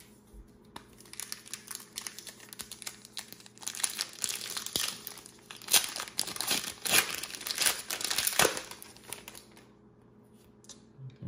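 Foil wrapper of a trading card pack being torn open and crinkled by hand: a run of sharp crackles, loudest in the middle, stopping about nine seconds in.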